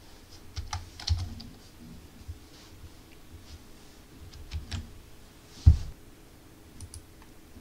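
Computer keyboard keys being pressed, a few clacks at a time in scattered clusters, with one heavier thump of a key or the desk near the end.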